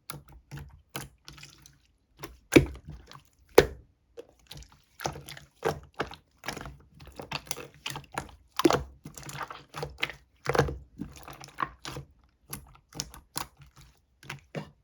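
Clear slime being squished and pressed by hand, giving irregular wet clicks and pops, with a few louder pops.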